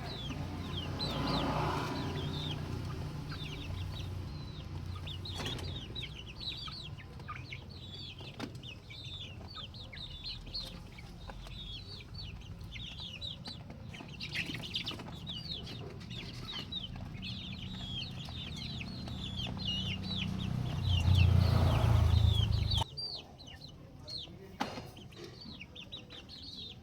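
A flock of chicks peeping continuously: many short, high chirps, each sliding down in pitch. Beneath them is a low rumbling noise that grows loudest about 21 seconds in and cuts off suddenly about 23 seconds in.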